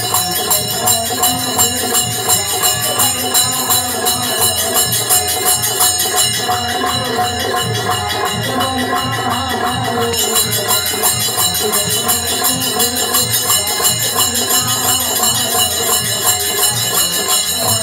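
Live devotional folk music: a harmonium's held tones under jingling hand cymbals that keep a steady beat of about two strokes a second.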